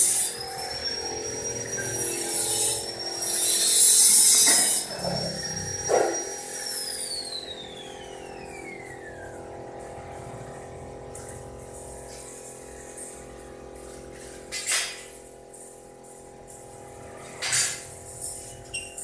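Electric power tool whining at high speed, with loud hissing bursts of grinding or cutting in the first five seconds. About six and a half seconds in it is switched off and the whine falls away as the motor spins down. A few sharp clinks follow near the end.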